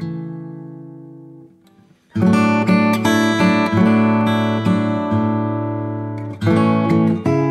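Background music: strummed acoustic guitar. A chord rings and fades out over the first two seconds, there is a brief gap, then strummed chords start again and carry on, with fresh strums near the end.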